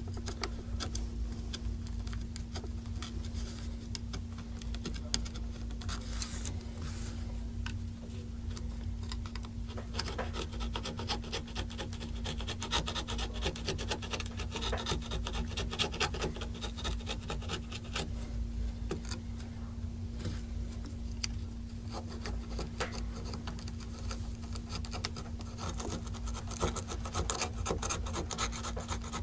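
A small pick scraping and scratching at a Samsung Galaxy S3's frame, picking off old screen adhesive: a continuous run of quick, fine scratches.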